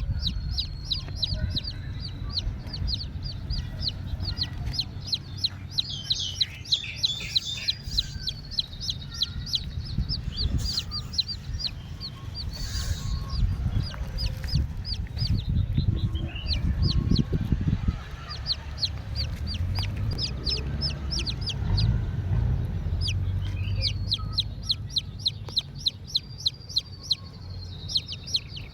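Chicken-like clucking with a fast string of short high chirps, several a second, over a low rumble. The chirps thin out midway and pick up again near the end.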